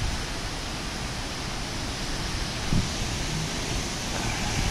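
Strong hurricane wind rushing steadily through palm trees and dense foliage, with low gusts buffeting the microphone, one stronger about two and a half seconds in.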